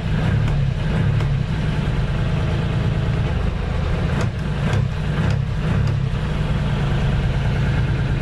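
Lifeboat diesel engine running steadily with a low throb. A couple of short clicks come about four and five seconds in.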